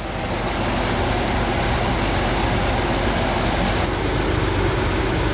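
Holden VH Commodore engine idling steadily.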